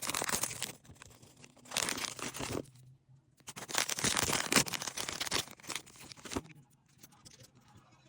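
Plastic packaging crinkling and tearing as a Mini Brands toy is unwrapped by hand, in three bursts of rustling with short pauses between.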